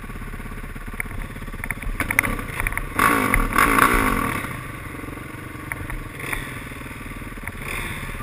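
Dirt bike engines idling with a steady pulse, with a few sharp clicks and clatters, then a louder surge about three seconds in that lasts a second and a half, as if a bike is revved briefly.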